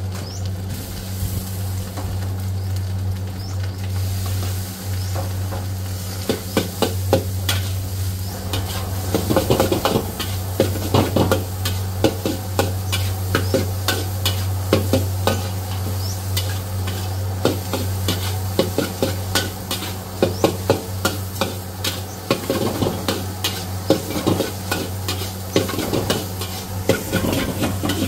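Fried rice sizzling in a wok as a metal spatula stirs it, scraping and knocking against the pan over a steady low hum. From about six seconds in, the spatula strikes come quick and frequent.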